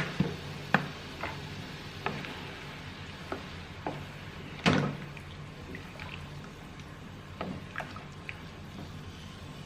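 A spatula knocking and scraping against a pan as food is stir-fried, with irregular sharp clicks (the loudest about halfway through) over a steady sizzling hiss.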